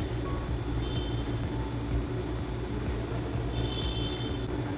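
Steady low machine hum in the background, with brief faint high-pitched tones about a second in and again near the end.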